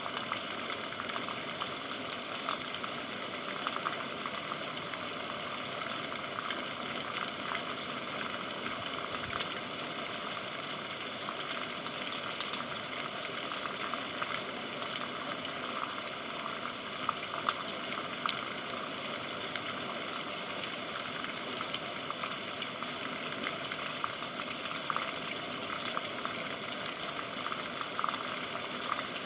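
Steady rain falling, a constant hiss with many separate drops ticking.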